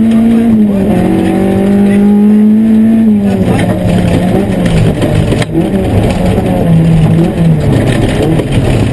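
Opel Astra GSI 16V rally car's engine heard from inside the cabin at high revs, holding a steady note for about three seconds with a slight drop about a second in. The revs then fall and wander over the gravel, with tyre and gravel noise and a single sharp knock about halfway through.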